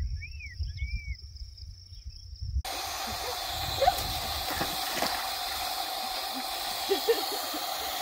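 Wind rumbling on the microphone over a steady trill of crickets and a few short bird chirps. About two and a half seconds in it cuts to a steady hiss with light splashing and a few sharper splashes as two border collies wade in a galvanized stock tank of water.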